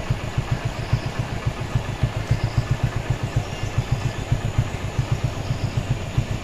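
An engine idling with a fast, even low throb.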